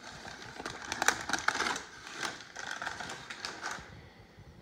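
Crumpled packing paper and plastic wrap crinkling and rustling as they are pulled aside in a cardboard box, with a quick run of crackles, busiest in the first two seconds and dying away near the end.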